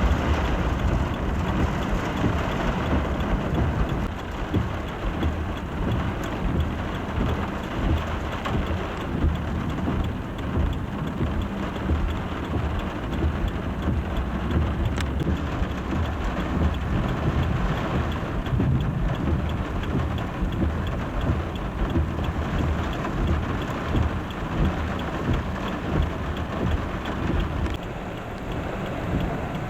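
Torrential rain pouring steadily, with a constant low rumble underneath.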